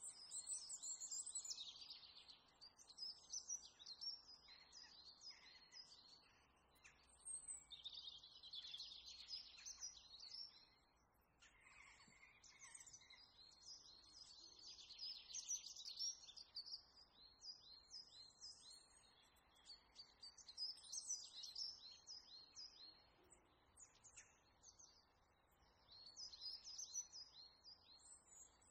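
Faint birdsong: bursts of quick, high chirping calls every few seconds over a low steady hiss.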